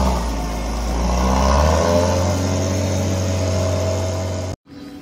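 A vehicle engine running with a steady low hum, its pitch rising and falling as it revs; the sound cuts off abruptly near the end.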